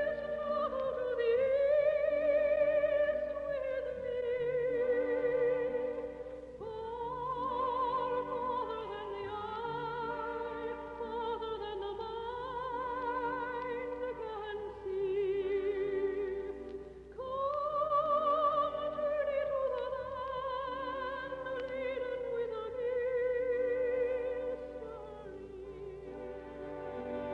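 A soprano singing long, wordless phrases with wide vibrato that rise and fall, over sustained orchestral chords, heard through an old radio recording with the highs cut off.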